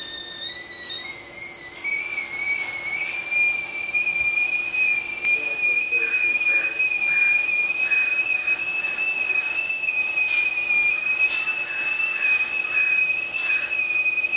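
Stainless steel stovetop kettle whistling at the boil: a high, steady whistle that climbs slightly in pitch and grows louder over the first few seconds, then holds.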